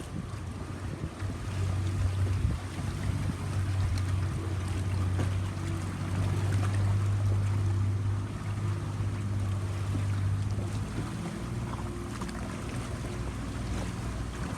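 A boat's engine running with a steady low hum that grows louder about a second and a half in and eases off near the end, over wind and water noise.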